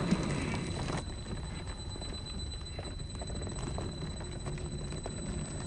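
1/10-scale RC rock crawler working over rough ground: motor and gear noise, louder for about the first second, then quieter with scattered light clicks and knocks of the chassis and tyres on rock.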